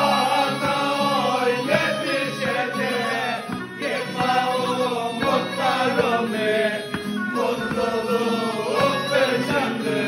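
A group of men singing together, accompanied by a tulum, the Black Sea bagpipe, whose steady piping runs under the voices.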